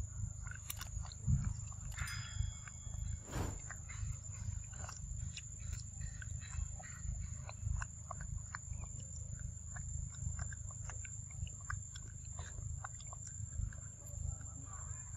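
Forest ambience: a steady high-pitched insect drone over a low rumble, with many scattered soft clicks and crackles and a brief high tone about two seconds in.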